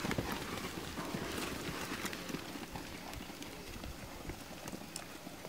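Hooves of a small flock of sheep trotting on packed dirt, an irregular patter of light steps.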